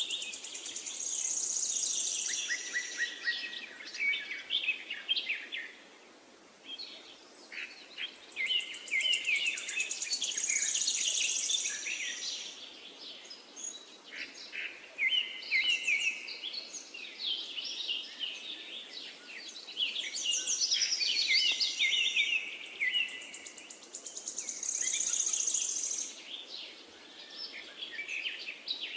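A songbird singing a long, rapid twittering song of quick chirps, repeatedly broken by a high buzzy trill, over a faint steady background hiss.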